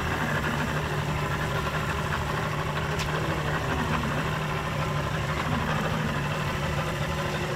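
Boat engine idling steadily, an even low hum that holds unchanged throughout.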